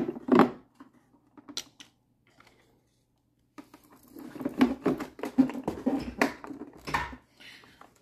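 Hard plastic knocking and clicking as a Bissell StainPro carpet cleaner's clean-water tank is handled and pressed onto its housing: a few knocks at the start, then a busy run of clattering from about halfway through.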